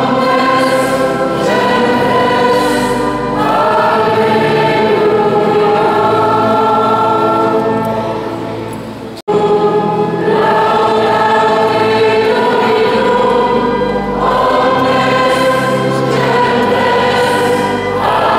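Choir singing a hymn in long held notes, echoing in a large stone church. The singing cuts off abruptly for an instant about nine seconds in, then starts again.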